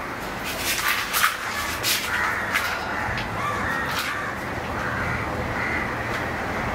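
Crows cawing, a string of short harsh caws at irregular intervals over a steady background hiss.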